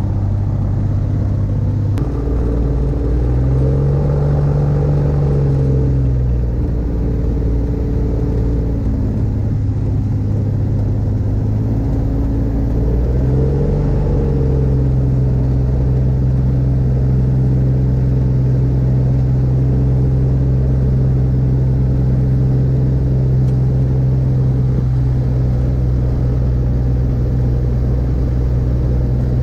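Rotax 582 two-stroke engine of an X-Air microlight running at low power, heard from the open cockpit. Its pitch rises and falls about three seconds in, rises again around thirteen seconds, and then holds steady.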